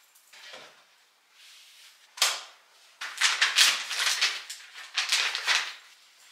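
A soft plastic packet of wipes crinkling as it is handled, in two crackly stretches, after one sharp click about two seconds in.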